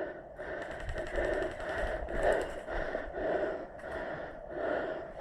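A person breathing heavily close to the microphone, breath after breath about once a second.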